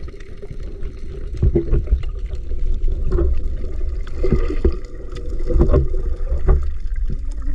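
Water sloshing and gurgling around a camera at the sea surface, over a heavy low rumble. Irregular splashes come from a freediver's kicks and bubbles as he goes under.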